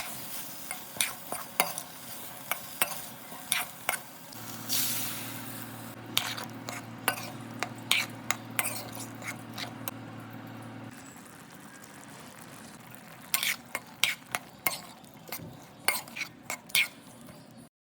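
A spatula stirring and scraping vegetables frying in a pan, with a steady sizzle and repeated sharp clicks of the spatula against the pan. A low steady hum joins in for several seconds in the middle.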